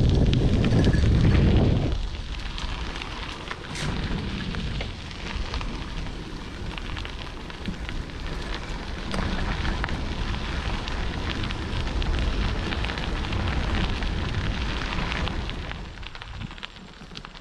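Bicycle tyres crunching over a gravel rail trail, a steady crackle of small ticks, with wind buffeting the action-camera microphone heavily for about the first two seconds.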